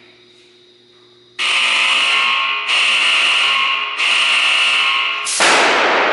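A warning buzzer sounds three times, each blast about a second long, then a sharp, loud bang from a large high-voltage capacitor bank (the Thumper) discharging, ringing away in the room over a couple of seconds.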